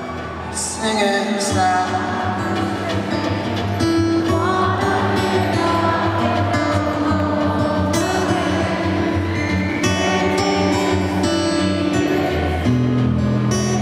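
Live concert music: a male voice singing over acoustic guitar and band, heard through the venue's sound system from within the audience. Near the end the low notes grow fuller.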